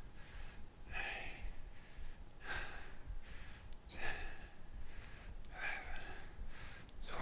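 A man breathing audibly in and out during exercise, one breath about every second and a half.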